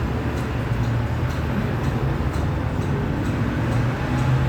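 Steady rumble of road traffic, with a low hum running under it.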